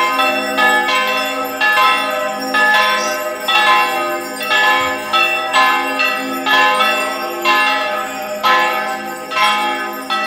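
Church bells pealing: several bells struck in turn, about once a second, each stroke ringing on under the next in a dense, overlapping hum.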